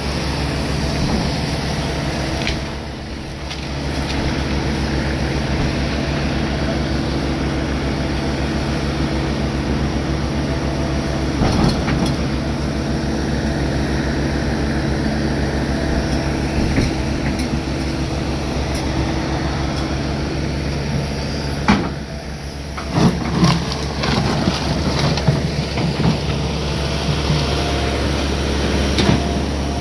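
Hitachi Zaxis 250LC-6 excavator's diesel engine running steadily under hydraulic load, easing off briefly about three seconds in and again a little past twenty seconds. A run of clanks and thuds follows in the last several seconds as a bucket load is dumped into the end dump trailer.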